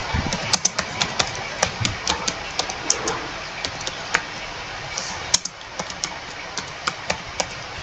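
Typing on a computer keyboard, heard over a video-call microphone: irregularly spaced key clicks, several a second.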